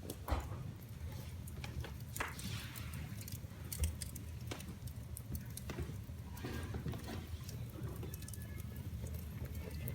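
Wood fire in a fireplace crackling: irregular sharp pops and snaps over a low steady rumble.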